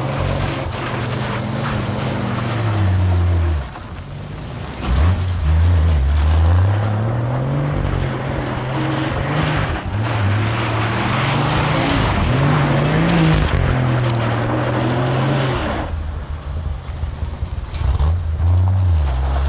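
1959 GMC pickup truck's engine revving up and falling back over and over as it spins donuts on dirt, briefly dropping off about four seconds in. A rushing noise of tyres churning loose dirt rises over the middle stretch.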